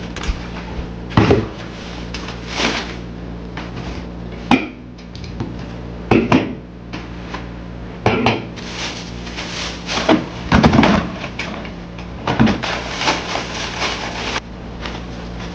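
Irregular knocks and clinks from a cardboard case of soda cans being set on a kitchen counter and the cans being taken out and set down, over a steady low hum.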